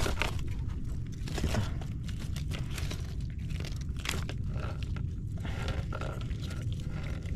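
Mesh fishing keep net being handled by hand: a run of irregular rustles and small clicks over a steady low rumble.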